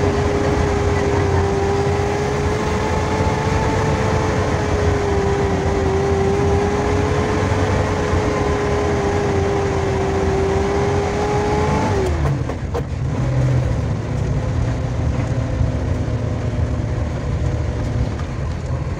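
Daihatsu Zebra van climbing a steep road under load, heard from inside the cabin: a steady engine drone with a high, steady whine on top. About twelve seconds in, the whine falls in pitch and fades out.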